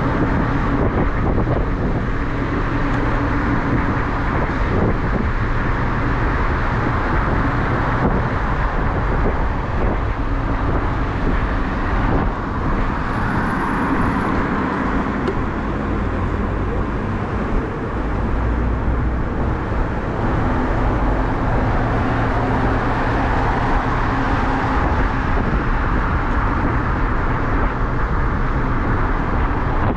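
Steady rush of wind and road noise on a body-mounted action camera's microphone while riding an electric bike through city traffic.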